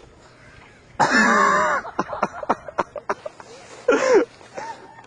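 A person's loud, non-word vocal outburst, cough-like, lasting nearly a second, followed by a run of short sharp clicks and a second brief cry about three seconds later.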